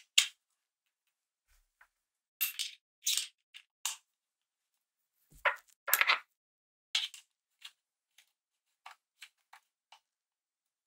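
Small metallic clicks and scrapes of button-cell batteries and the metal battery cover being fitted into a Pentax ME Super camera body, a dozen or so short sharp sounds in two bunches, with lighter ticks near the end.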